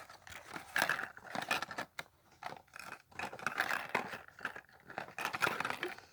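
Hands prying open a small plastic surprise ball and its wrapping: irregular scraping, crinkling and clicking of plastic.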